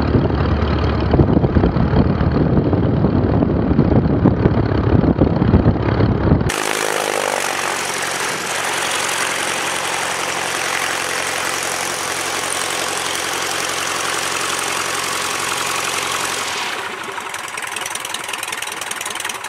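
Zenith STOL CH 750 light-sport aircraft's engine and propeller running at taxi power. It is heard first from inside the cockpit as a heavy low drone, then about six and a half seconds in from outside as a brighter, steady engine-and-propeller sound, a little quieter near the end.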